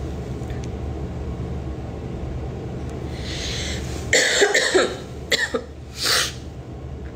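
A woman coughing: a breath in, then a run of harsh coughs starting about four seconds in, with two more single coughs after. She is ill with something she feels mostly as a cough.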